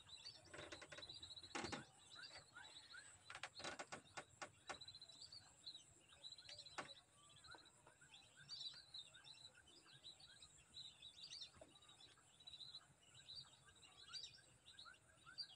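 Faint bird chirps and short whistled calls, many of them, repeating throughout, with a few soft clicks in the first five seconds.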